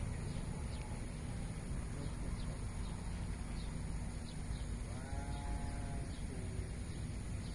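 Steady low rumble of outdoor ambience, with one animal call lasting about a second, about five seconds in, and faint high chirps throughout.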